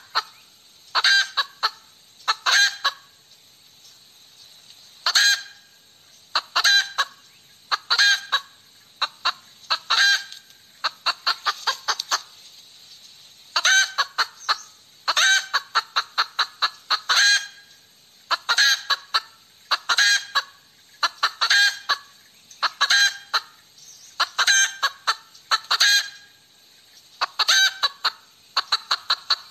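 Hen cackling: quick runs of sharp, loud clucks, one run about every second or so, repeated over and over.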